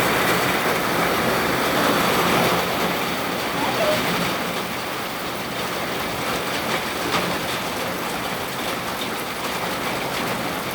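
Steady rain falling, an even hiss that eases slightly about three seconds in.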